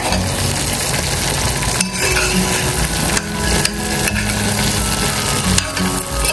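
Pecans frying in butter and caramelizing sugar in a pan, a steady sizzle, while a utensil stirs them and clinks and scrapes against the pan a few times.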